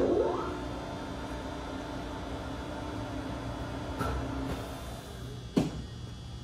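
Willis SK2640 engine lathe's spindle starting with a thunk and a quickly rising whine, then running steadily with a gear hum for about four seconds before it stops. A single sharp clunk follows about a second later.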